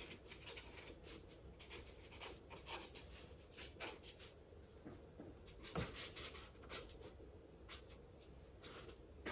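Marker tip scratching faintly on sketchbook paper in many short, quick strokes while drawing knobby tyres, with a single soft knock about six seconds in.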